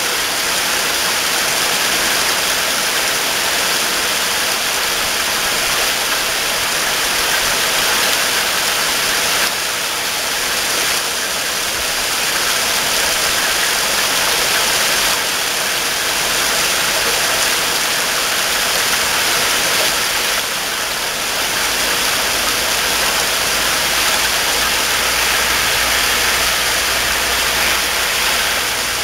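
Heavy rain falling steadily, a dense, even hiss. A low rumble joins in about two-thirds of the way through.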